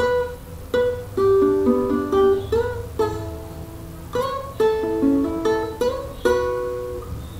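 Acoustic guitar picking a vallenato lead phrase, the closing 'remate' of the punteo. It is a melody of single plucked notes, about two to three a second, with now and then two notes sounding together.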